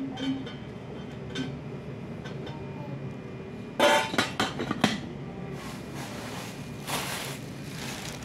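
A metal-rimmed pot lid clinking and knocking against a cookware pot as it is set on and adjusted: a quick run of sharp clinks with brief ringing about halfway through, followed by two softer scrapes.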